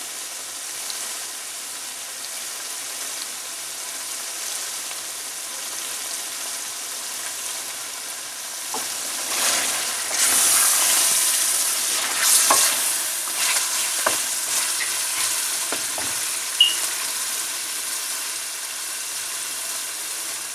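Lamb karahi sizzling in oil in a steel karahi pan. About halfway through, a spatula stirs and scrapes the meat around the pan, and the sizzling grows louder for a few seconds.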